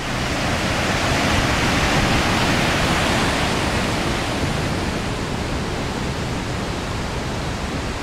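Steady rush of a mountain river cascade, growing slightly fainter in the second half.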